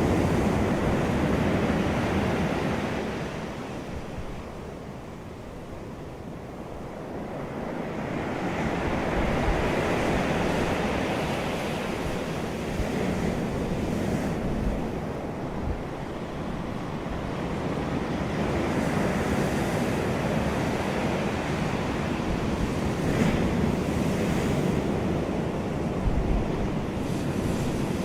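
Ocean waves surging and washing back as a steady rushing noise that swells and ebbs, with a lull a few seconds in before the next wave builds.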